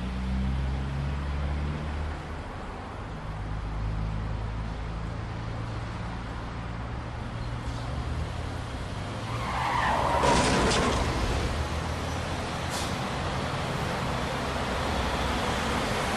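Road traffic with car engines running, then tyres screeching about ten seconds in, mixed with sharp crash-like impacts. A further short knock comes a couple of seconds later.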